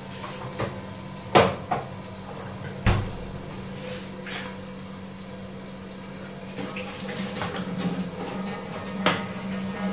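Chopped onions frying in oil in a covered aluminium pot, a muffled steady sizzle under the lid, with a steady low hum and a few sharp knocks, the loudest about a second and a half in.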